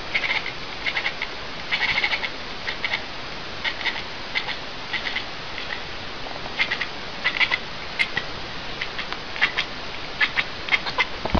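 Tabby cat chattering: clusters of short, rapid clicking chirps every second or so, over a steady hiss.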